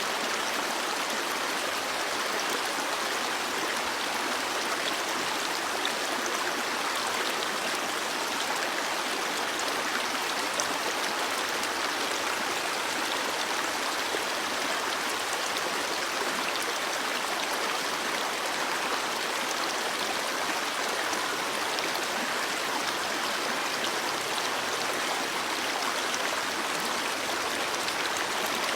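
Stream water flowing steadily in a constant, even rush.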